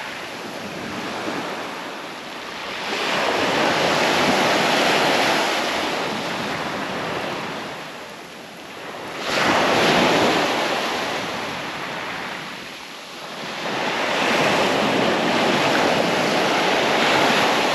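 Surf breaking on the beach, its rush swelling and easing in three long surges, with the sharpest wave breaking about nine seconds in.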